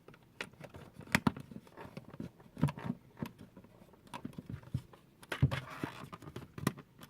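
Small, flimsy plastic shelves being slotted into a miniature plastic toy fridge: irregular plastic clicks and knocks, with a brief scraping rub about five and a half seconds in.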